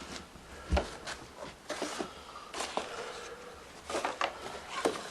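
Handling noise from people searching by hand in a small room: scattered clicks, knocks and rustles, with one heavier thump about three-quarters of a second in.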